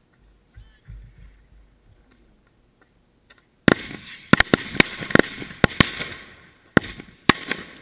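Fireworks packed into a teddy bear going off on the ground: a sudden loud bang a little past halfway, then a dense crackle with a string of sharp bangs for the next few seconds.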